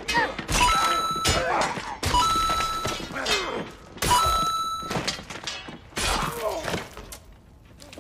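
Sword-fight sound effects: clashing blades, impacts and thuds, with men grunting. Three times a short bell-like ding sounds, about half a second, two seconds and four seconds in, each marking another kill on an on-screen kill counter.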